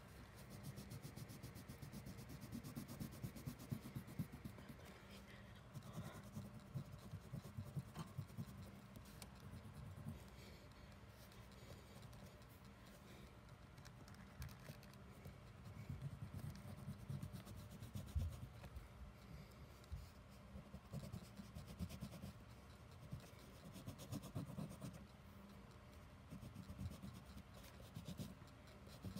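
Colouring on paper by hand: faint, quick back-and-forth scratching strokes of a colouring stick rubbing across the sheet.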